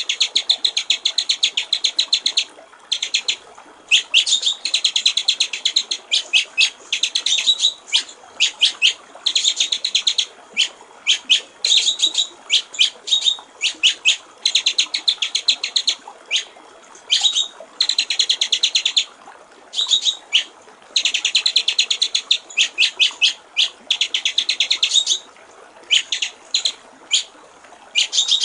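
White-rumped shama (murai batu) singing in bursts of very rapid repeated high notes, each rattling trill lasting one to three seconds with short gaps between, over a faint steady trickle of water.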